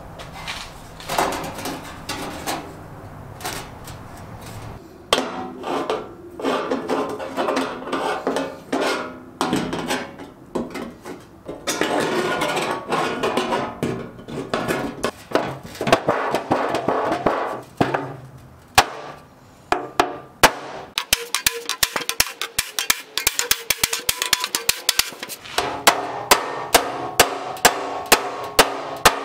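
Hammer striking the sheet-steel bed of a vintage steel wagon. The blows come in scattered groups at first, then become fast and regular, several a second, in the second half. Music plays underneath.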